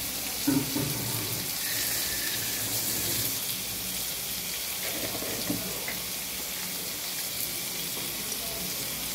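Pointed gourd (potol) and boiled potato pieces frying in oil in a kadai, a steady sizzling hiss, with a brief clatter about half a second in.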